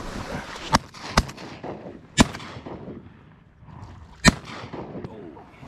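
Duck hunters' shotguns firing: four shots over about three and a half seconds, the second fainter than the rest, the third and fourth the loudest.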